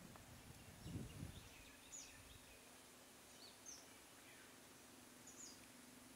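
Near silence, with a few short, high, falling bird chirps scattered through and a brief low rumble about a second in. A faint steady low hum starts about two and a half seconds in.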